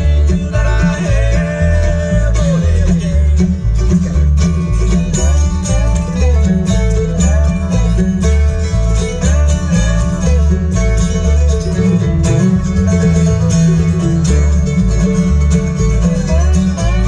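A bluegrass band playing live through a PA: upright bass on a steady beat under acoustic guitar and other plucked strings.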